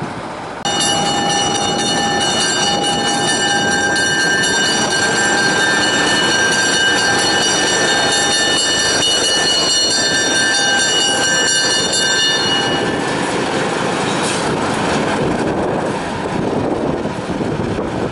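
Diesel switcher locomotive running past close by, with a high, shrill squeal from its wheels on the curved track. The squeal starts about a second in and stops about thirteen seconds in, leaving the engine and rolling rumble as it moves off.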